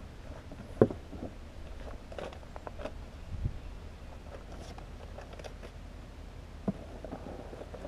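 Cardboard shipping box being handled and opened: scattered knocks and rustles of cardboard, with a sharp knock about a second in and another near the end.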